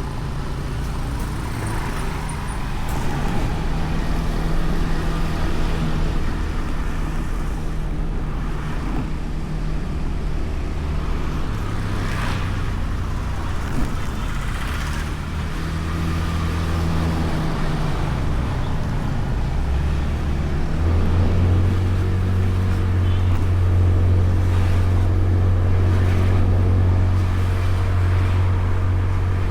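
Honda Beat scooter's small single-cylinder engine running while riding, with tyre and traffic noise around it. It gets louder and steadier about two-thirds of the way through.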